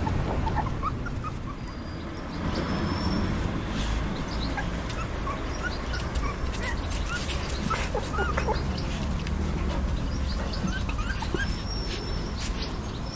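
Three-week-old Belgian Shepherd puppies whimpering and yipping in short, scattered high squeaks.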